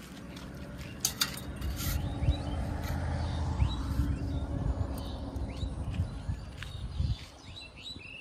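A low steady rumble that cuts off sharply about seven seconds in, with small birds chirping over it.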